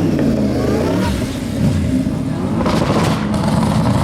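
Audi RS6 C7's twin-turbo V8 through a loud aftermarket exhaust, its pitch gliding down in the first second, then running on with a rougher note and a cluster of sharp cracks about three seconds in.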